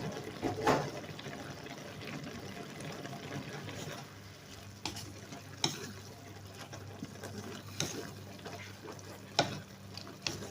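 Food being stirred in a pan over a low, steady sizzle, with a utensil knocking sharply against the pan about five times.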